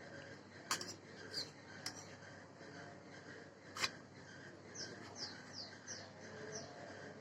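A few sharp clicks or taps, the loudest about four seconds in, then a small bird's short falling chirps repeating two to three times a second near the end.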